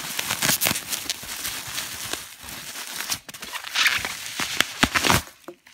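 Plastic bubble wrap crinkling and foam packing peanuts rustling as a bubble-wrapped bottle is handled and lifted out of the box, a dense run of crackles that stops about five seconds in.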